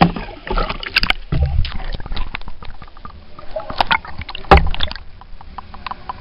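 Pool water sloshing and churning around a camera held at and under the surface, heard muffled, with irregular knocks and bumps on the housing. The strongest thumps come about one second and about four and a half seconds in.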